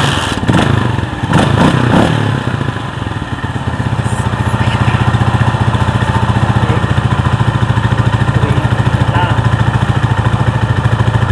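Rusi motorcycle-with-sidecar (tricycle) engine catching and running: uneven for the first couple of seconds, then settling into a steady idle with a fast, even putter.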